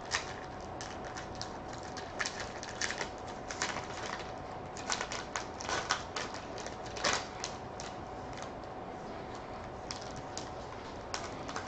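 Hands tearing open a baseball card pack and sliding the stack of cards out: irregular crinkling of the wrapper and rustling, clicking card stock, loudest a few times in the middle. A faint steady hum runs underneath.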